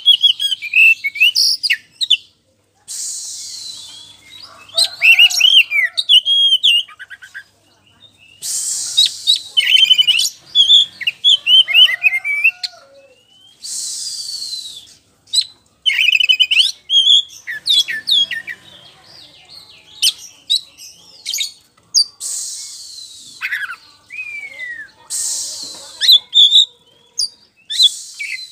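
Oriental magpie-robin of the white-bellied 'poci' type singing loud, varied whistled phrases and quick trills. Every few seconds the song is broken by a harsh, hissing rasp about a second long.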